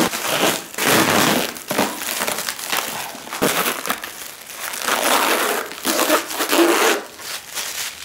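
Thin protective plastic film being peeled off a clear plastic bubble dome and crumpled by hand: crinkling and crackling in a run of uneven bursts with short pauses between them.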